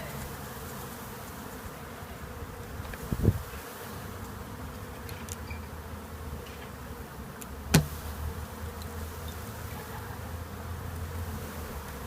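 Swarm of honey bees buzzing steadily around an open hive box. Two sharp knocks, about three and eight seconds in.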